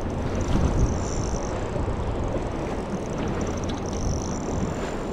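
Boat engine running steadily with wind and water noise, and a thin high whine that comes and goes.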